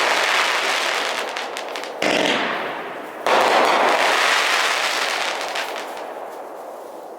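Consumer fireworks going off: a dense hissing crackle, with two sudden new bursts about two and three seconds in, each dying away, and the whole fading near the end.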